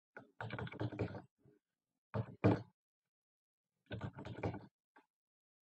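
Computer keyboard and mouse clicked in several quick clusters of knocks and clicks, with short silences between them.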